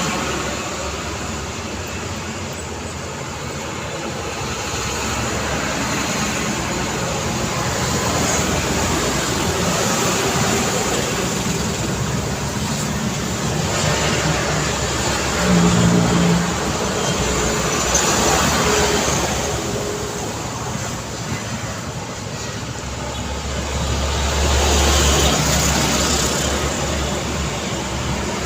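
Busy road traffic: engines and tyres of passing vehicles, swelling and fading as each goes by. A brief pitched tone sounds about halfway through, and a deep engine rumble builds near the end.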